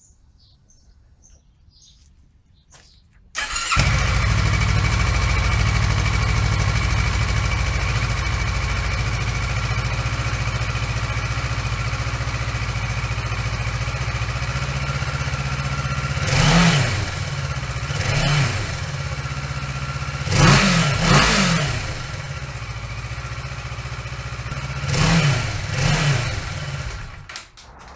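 2015 Kawasaki Versys 650's parallel-twin engine on its stock exhaust, starting about three and a half seconds in and idling steadily. It is revved in six short throttle blips in the second half, then switched off near the end.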